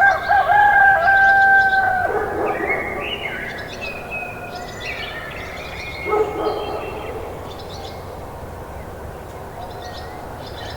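A rooster crows, one long held call over the first two seconds. Further chicken calls come about two and six seconds in, with small birds chirping throughout.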